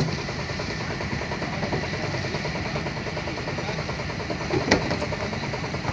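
An engine idling steadily with a low drone. A single sharp knock comes near the end.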